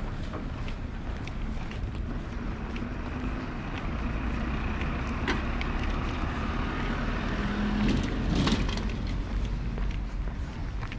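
An engine passing by, its noise swelling to a peak about eight seconds in and then fading, over a walker's footsteps.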